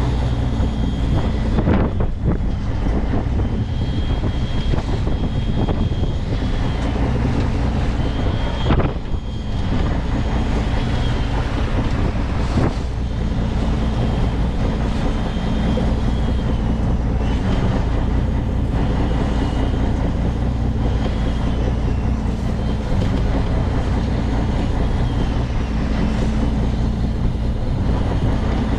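Fishing boat's engine running steadily, with wind on the microphone. Over it runs the thin, high whine of a Shimano Force Master 2000 electric reel winding in a fish, sagging and recovering every few seconds as the load changes.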